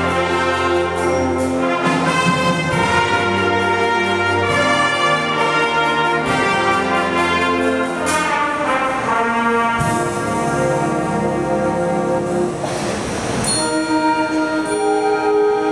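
Student concert band playing: flutes, clarinets, saxophones and brass sustaining chords together, with a crash about halfway through.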